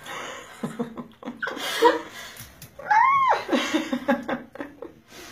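A person laughing, with one short, high squeal that rises and then falls about three seconds in.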